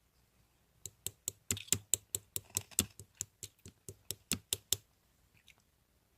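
A quick run of about twenty sharp clicks or taps, four to five a second, that starts about a second in and stops about five seconds in.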